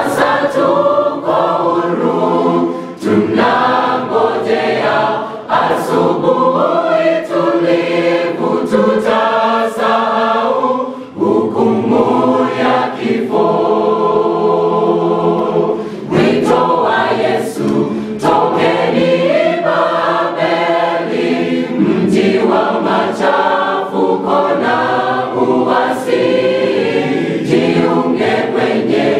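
Mixed choir of women's and men's voices singing a gospel song in parts, with a chord held for several seconds about halfway through.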